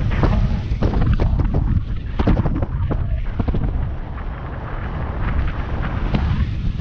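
Wind rushing over a hang glider's wing-mounted camera microphone in flight: a heavy, steady low rumble broken by irregular sharp thumps and pops as gusts buffet it.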